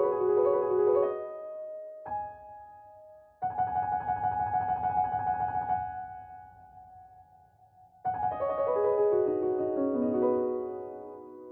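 Background piano music: phrases of quickly repeated notes, with a falling run of notes about two-thirds of the way in.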